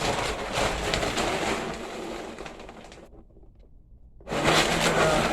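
Dry cat kibble rustling and rattling as it is stirred and mixed in a container. The noise fades, stops for about a second past the middle, then comes back louder.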